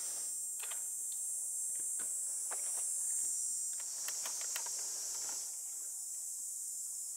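Steady high-pitched chorus of insects in the grass, with a few faint clicks.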